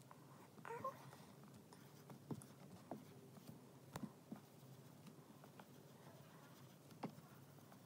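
Near silence with faint scratching and a few light taps of a felt-tip marker on a whiteboard as small circles are coloured in.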